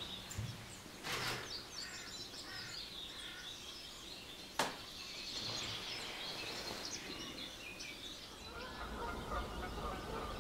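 Small songbirds chirping and singing in the background of an open bog. A single sharp click about halfway through, and a low rumble comes in near the end.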